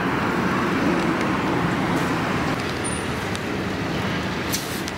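Road traffic noise: a motor vehicle's engine running close by, a steady low sound.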